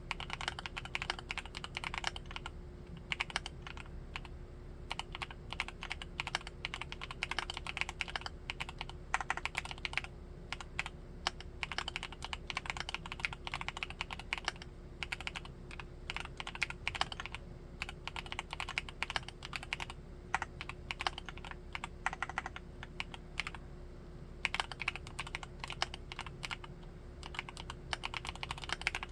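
Steady typing on a Createkeebs Luminkey75 mechanical keyboard with Gateron Baby Raccoon linear switches: fast runs of keystrokes broken by short pauses.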